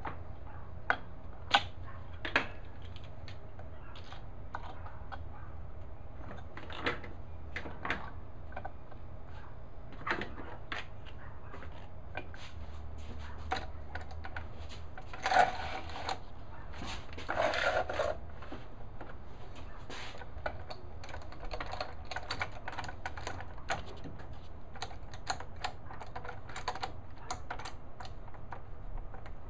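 Woodworking clamps being set and tightened on a glued-up tabletop: irregular clicks and knocks of the quick-grip triggers and the clamp jaws against wood and the metal saw table, with a busier clatter about fifteen seconds in. A steady low hum runs underneath.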